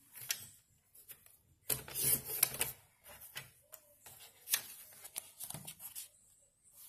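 Printed photos slid and shuffled by hand across a journal's paper pages: paper rustling and scraping with scattered light taps, loudest about two seconds in.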